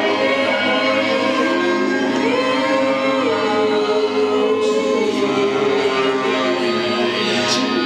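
Wordless singing: long held notes that slide slowly up and down between pitches, over a steady sustained musical backing.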